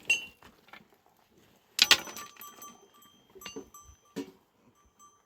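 Goat calling loudly once, about two seconds in, followed by a faint ringing tone that lingers and a few short knocks.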